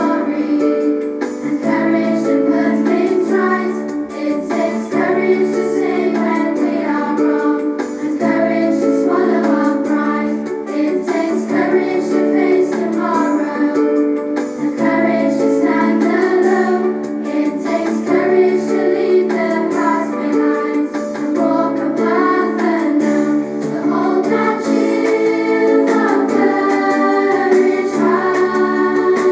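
A song sung by voices over a steady instrumental accompaniment, running through a verse and reaching the chorus near the end.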